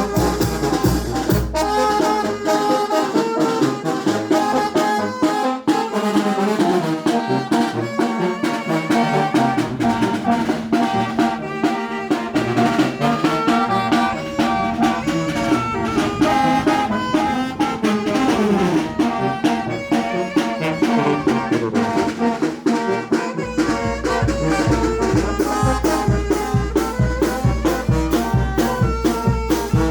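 Brass band playing a ranchera: trumpets and trombones over drums. A heavy low bass beat drops out about two seconds in and comes back in near the end.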